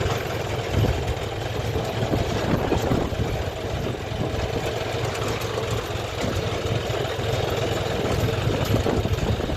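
A vehicle engine running steadily, with a constant low hum and no change in speed.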